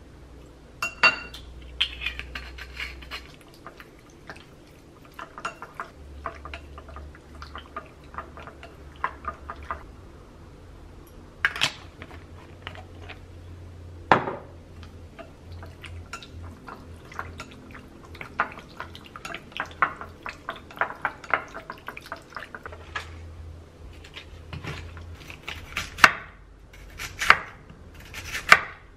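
Metal spoon clinking and scraping against a small glass bowl while stirring meat in a marinade, with a few sharper knocks. Near the end, a knife chops on a wooden cutting board, strokes about a second apart.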